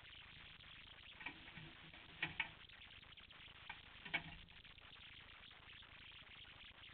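Faint steady hiss with a handful of soft clicks and taps in the middle, the loudest a quick pair a little over two seconds in and another near four seconds.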